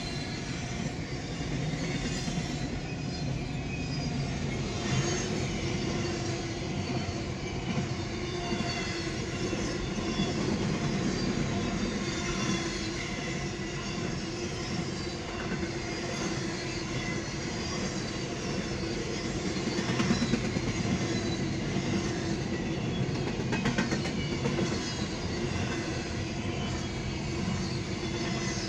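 Double-stack container freight train cars rolling steadily past, heard from inside a car, with occasional clicks of the wheels over the rail joints.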